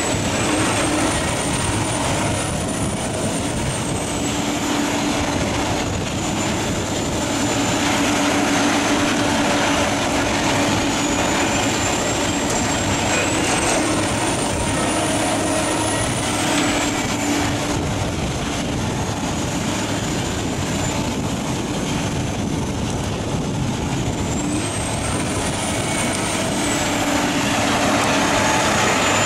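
Morbark HT1684 Predator tracked shredder running steadily, its 500 hp engine and slow-speed shredder working through waste wood. A thin high whine rises and falls in pitch three times over the steady machine noise.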